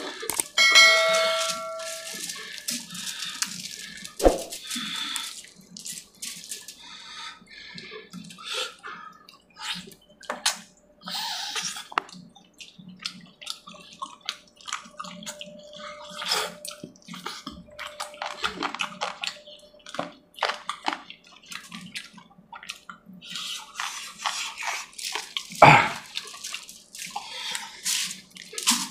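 Close-up wet chewing, lip smacks and sticky finger-and-mouth clicks of someone eating chicken curry and puri by hand, in irregular bursts. A short electronic chime sounds about a second in.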